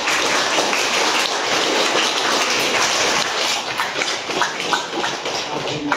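Audience applauding, a dense, steady clapping that tapers off near the end.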